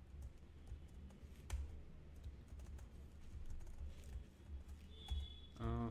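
Typing on a computer keyboard: scattered key clicks, a few at a time with short pauses, over a faint low hum.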